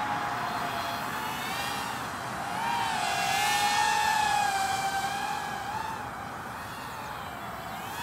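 Motors of an HGLRC Drashark 1.6-inch 1S micro FPV drone whining as it flies, the pitch wavering up and down with throttle. It gets louder about three seconds in, as the drone passes close, then fades a little.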